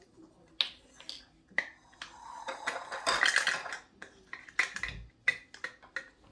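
Water poured into a bowl of brownie mix for about two seconds near the middle, with sharp clinks and taps of dishes and utensils before and after.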